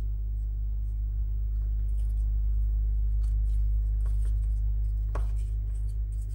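Faint clicks and light scrapes of small parts of a floppy disk drive being handled, over a steady low hum.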